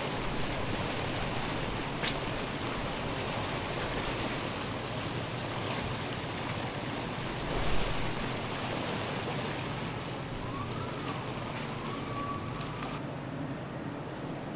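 Steady rush of sea water churning and splashing around a small submersible at the surface, mixed with wind, briefly louder about eight seconds in.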